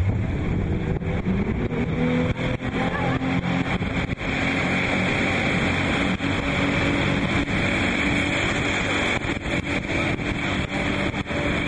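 Speedboat motor running hard, its pitch climbing over the first couple of seconds and then holding steady, with wind buffeting the microphone and rushing water.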